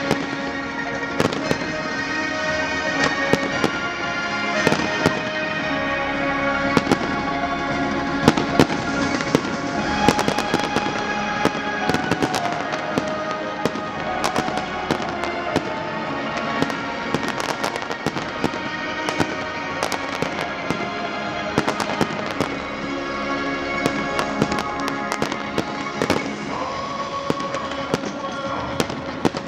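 Aerial fireworks display, a Valencian castillo, with rockets and shells going off in a rapid, irregular run of sharp bangs and crackles, thickest about a third of the way through. Music plays steadily underneath.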